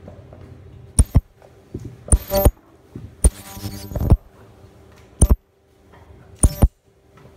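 Handheld spot-welding gun fusing a PVC wig-net edge: a run of short buzzing pulses, about seven, one of them lasting nearly a second, as the tip is pressed down spot by spot, over a low steady machine hum.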